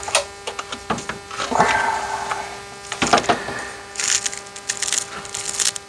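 Plastic clicks and knocks of an instrument cluster and its wiring connectors being handled on a workbench, with a brief rustle about one and a half seconds in, over a steady hum.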